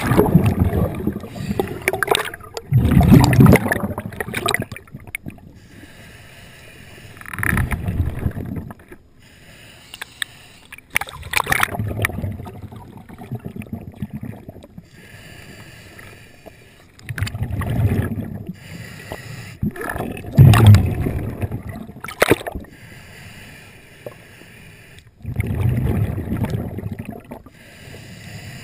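Underwater sound of a diver's descent: churning bubbles right after the entry into the water, then rushing bursts of bubbles every few seconds, about seven in all, in the rhythm of a scuba diver's exhaled breaths through the regulator.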